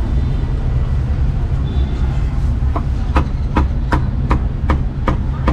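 A cleaver chops braised meat on a thick round wooden chopping block. About halfway through come eight quick, even chops, roughly three a second, over a steady low rumble.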